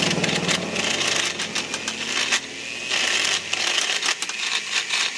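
A motor-driven machine running with a steady low hum under rapid clattering and hiss; the hum stops about three and a half seconds in, while the clattering carries on.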